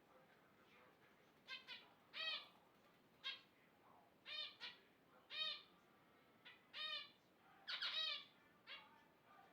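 Pet birds calling: a series of short, clear calls, each rising and falling in pitch, about a dozen in all, some coming in quick pairs.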